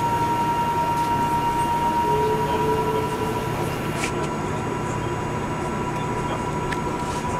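Airbus A380 cabin noise on the takeoff run: a steady rumble of engines and rolling wheels, with a steady high engine whine over it.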